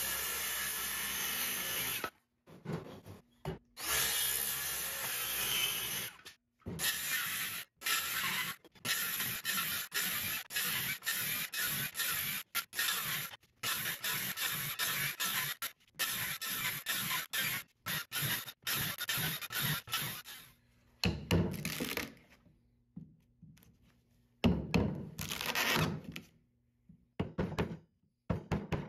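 Makita circular saw cutting a row of closely spaced shallow kerfs across a board. First come a couple of longer cuts, then many short cuts in quick succession. After the cutting stops, a chisel knocks and pries out the wood between the kerfs a few times.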